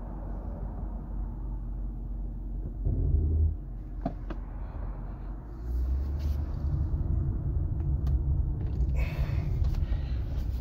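Low rumble of a Lexus LS460 on the move, heard from inside the cabin: road and engine noise with no clear pitch. It swells briefly about three seconds in and grows louder again from about six seconds in.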